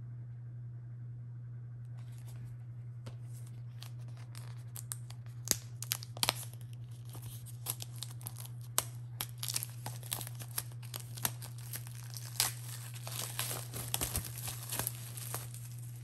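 Plastic shrink-wrap crinkling and tearing as it is peeled off a Blu-ray box set. Irregular sharp crackles start about five seconds in and run until near the end, over a steady low hum.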